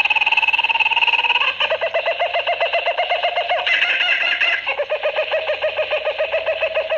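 Jungle bird sound effect: a fast, pulsing trill of bird-like calls in several overlapping tones, without pause, shifting to a new pitch pattern about a second and a half in and again near five seconds.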